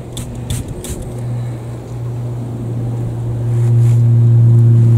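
A motor drones steadily, swelling louder about three and a half seconds in. In the first second a hand-held trigger spray bottle gives a few quick squirts, misting bean flowers.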